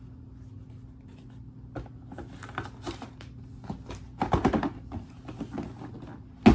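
Sneakers being handled and set down: a run of light, irregular clicks and knocks, then one sharp thump near the end.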